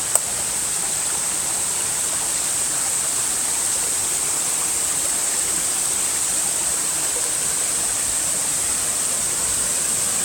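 Waterfall pouring into a pool at its base: a steady, even rushing hiss, strongest in the high range. A single sharp click sounds just after the start.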